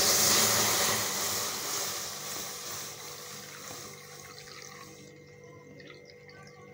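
Milk poured into a hot kadai, hissing sharply the moment it hits the heated pan and fading away over about five seconds as the pour goes on.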